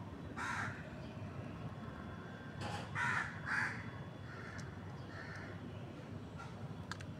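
A tabby kitten eating dry kibble from a plastic bowl, with a few faint crunching clicks. Several short harsh bird calls sound in the background, the loudest about three seconds in.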